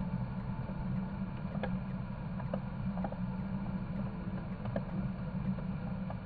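A boat's steady, muffled low rumble, with a few faint clicks scattered through it.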